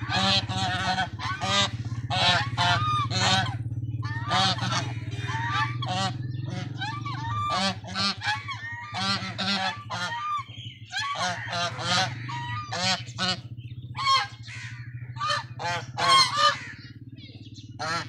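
A small flock of white domestic geese honking over and over, short calls following and overlapping one another, with a steady low hum underneath.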